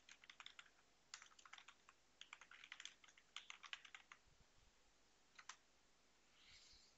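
Faint typing on a computer keyboard: a quick run of keystrokes for about four seconds, then a couple more keystrokes about a second later.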